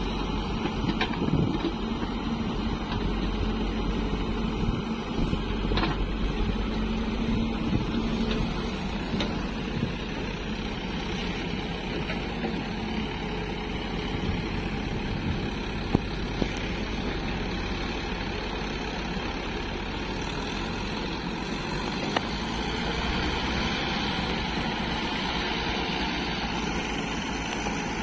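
Diesel engines of a Hyundai 140 excavator and a Sonalika 750 tractor running steadily as the excavator tips a bucket of earth into the trolley and the tractor pulls the loaded trolley away. There is a steady hum through the first eight seconds and a few sharp knocks along the way.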